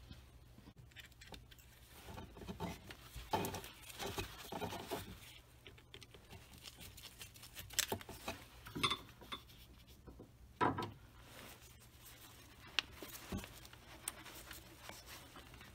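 Scattered light clinks, knocks and rustling as gloved hands twist and tug rubber hoses on an oil catch can's metal hose-barb fittings and clamps, with the loudest knock about ten and a half seconds in.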